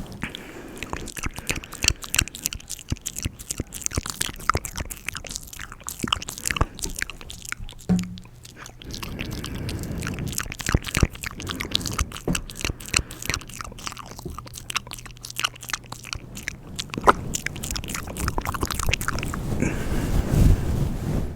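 ASMR mouth sounds close to the microphone: many quick, irregular wet clicks and smacks of the lips and tongue.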